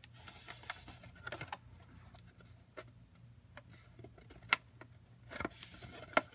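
Poster board being folded and pressed together by hand: scattered rustles, creases and light taps, with one sharp click about four and a half seconds in.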